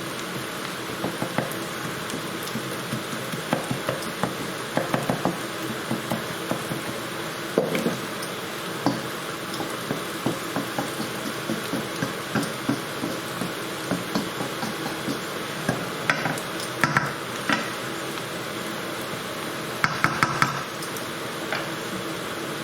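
Chopped onions, garlic and red chillies frying in oil and butter ghee in a pan, a steady sizzle, with a utensil knocking and scraping against the pan as they are stirred, in clusters of knocks, the busiest about two-thirds of the way through and near the end.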